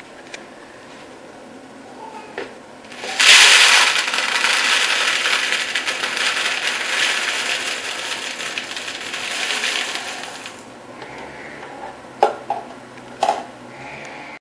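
Dry macaroni poured into a plastic Tupperware microwave pasta cooker: a dense rattle that starts suddenly, runs about seven seconds and slowly tails off. Two light knocks come near the end.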